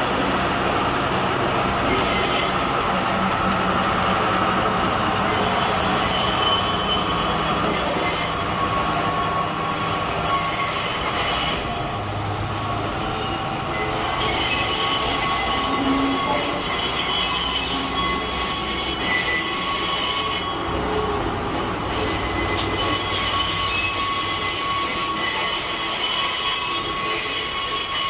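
Steel wheels of a slowly hauled 189 series electric train set squealing on the yard track in thin, high, steady tones, stronger in the second half. Under it, the low hum of the small diesel shunting locomotive's engine fades out about halfway through.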